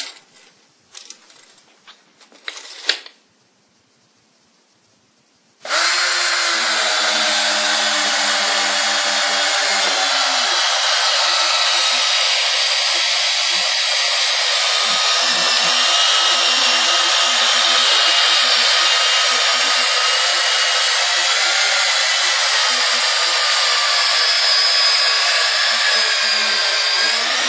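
Black & Decker EGBHP188 18V cordless hammer drill/driver driving a 45 cm long, 8 mm screw into a wooden beam, its motor running under load for over twenty seconds at a steady pitch from about six seconds in. A few handling knocks come before it starts.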